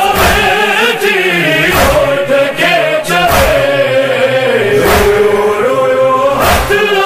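Sindhi noha, a Shia lament, chanted by a male voice in long, wavering melodic lines over a backing chorus, with sharp strikes about once a second.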